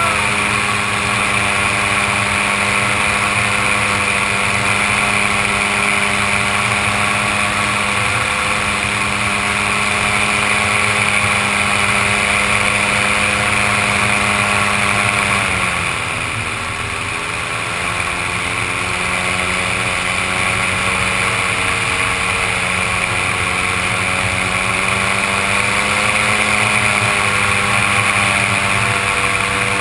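Powered paraglider (paramotor) engine and propeller running steadily in flight, a constant pitched drone. About fifteen seconds in the throttle is eased back and the pitch and level drop, then the engine climbs gradually back up to its cruising pitch over the next few seconds.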